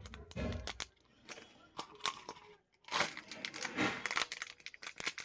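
Plastic-wrapped Gems chocolate packets crinkling and rustling as they are pulled out of a plastic tube and handled, a string of sharp crackles that grows denser in the second half.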